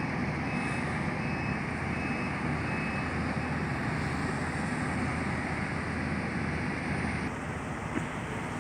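Heavy demolition machinery running steadily, with a faint, repeated high beep over the first few seconds.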